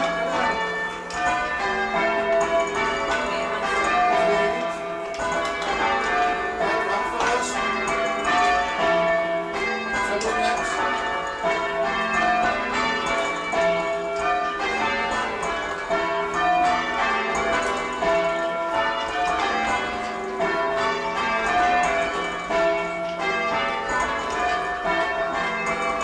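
Church bells change ringing, a steady even sequence of strikes heard from the ringing chamber. The sixth bell is silent in the rows because its clapper has fallen out.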